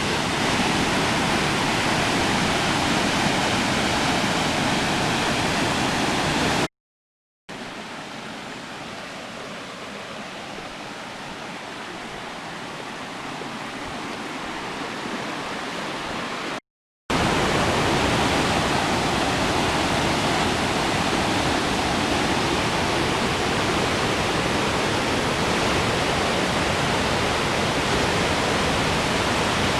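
Waterfall rushing, a dense steady sound of falling water. It is broken twice by short gaps of silence; between them, from about seven to seventeen seconds in, the water is quieter and more distant, slowly growing louder.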